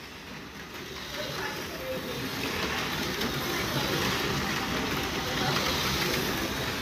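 AFX HO slot cars running laps on a plastic four-lane track: a steady whir from their small electric motors and the cars riding in the slots. It builds over the first couple of seconds, then holds.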